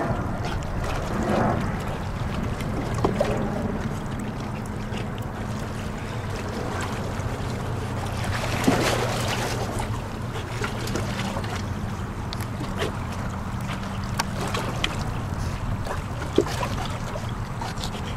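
Wind on the microphone over small waves lapping, with a steady low engine drone underneath and a brief splash from a swimming dog about nine seconds in.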